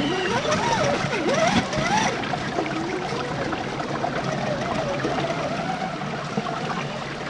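Brushed electric motor and gear transmission of an RC scale crawler whining, its pitch rising and falling with the throttle as it climbs over rocks and logs. Running creek water trickles underneath.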